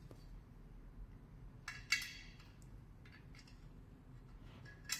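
Faint clicks and scrapes of a screw and a small metal fitting being handled, with the loudest scrape about two seconds in.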